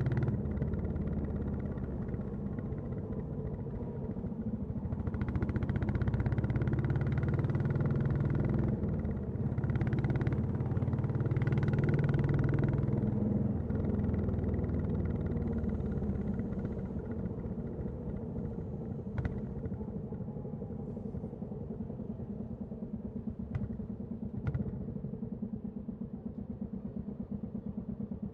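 Royal Enfield Classic 350's single-cylinder engine and exhaust running, louder under throttle through the first half. About halfway through it settles to a slow, even idle thump. A few short sharp clicks come near the end.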